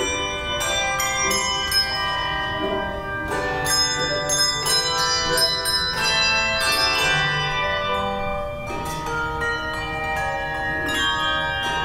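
Handbell choir playing a piece: many bells struck together in chords and runs, each note ringing on and overlapping the next.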